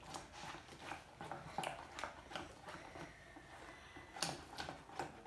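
Scattered small clicks and taps of objects being handled at a table, with a sharper double click about four seconds in.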